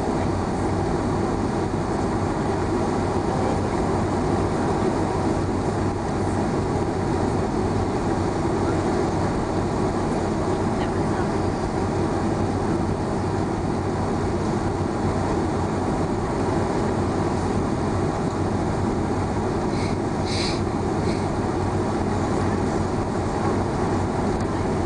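Steady cabin noise of an airliner taxiing on the ground: the low rumble of its jet engines at idle with a steady hum, heard from inside the cabin. A short clicking sound comes near the end.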